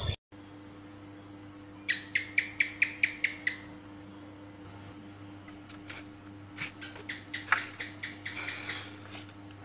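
Night ambience of crickets and other insects trilling steadily over a low hum. About two seconds in comes a quick run of around seven sharp chirps, and scattered chirps and clicks follow later.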